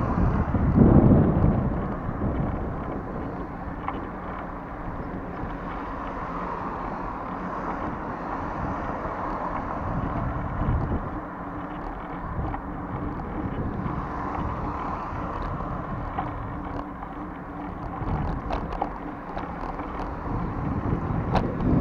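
Steady street traffic noise mixed with wind rumbling on the microphone, with a louder swell about a second in and a few light clicks near the end.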